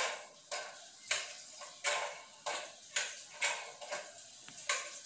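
Metal spoon stirring and scraping frying onions in a rice cooker's inner pot, with about eight quick scraping strokes in a loose rhythm, each with a short hiss.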